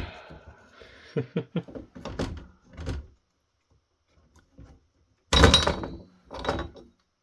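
Clunks and scraping knocks of a heatsink being forced and twisted on a network switch circuit board, with a loud thunk a little past the middle. The heatsink is thermal-epoxied to the chip and will not come off.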